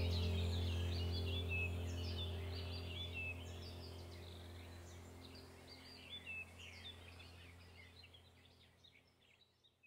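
Ambient background music of sustained low drone tones with birdsong chirping over it, fading out gradually to near silence by the end.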